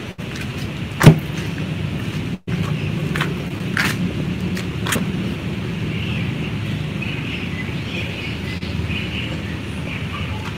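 Steady low rumble of a car, with a single loud sharp knock about a second in and a few lighter clicks later. The sound cuts out briefly twice near the start.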